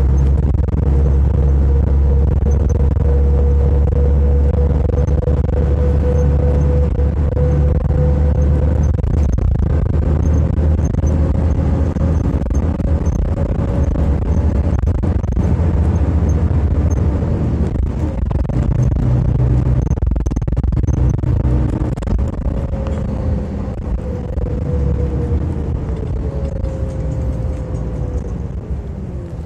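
City bus running, heard from inside: a heavy low engine and road rumble with a steady whine that falls in pitch and fades near the end as the bus slows.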